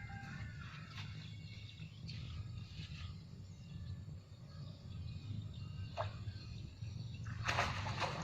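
Outdoor ambience: faint bird chirps over a steady low hum, with a couple of short clicks and a brief rustle near the end.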